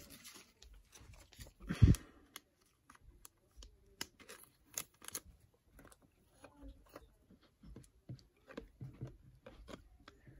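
A trading card being slid into a plastic sleeve and handled, with light plastic scrapes and small clicks, and one louder thump on the wooden table about two seconds in.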